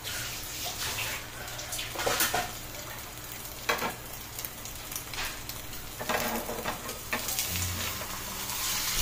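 Egg omelette with onion sizzling in hot coconut oil in a kadai, with a spatula scraping and knocking against the pan several times as it is turned over.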